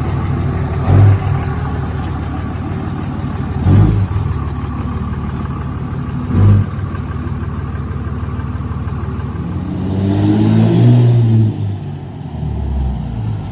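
2007 Ram 2500's 5.9-litre 24-valve Cummins diesel running on a drive, with three short loud thumps about one, four and six and a half seconds in. Near the end the engine revs up and eases back off.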